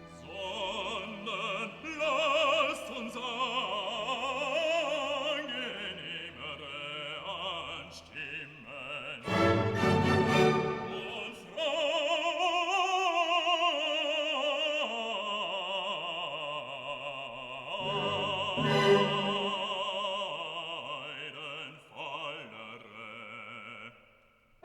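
Operatic classical music: a singer holding long notes with wide vibrato over orchestral accompaniment, fading away just before the end.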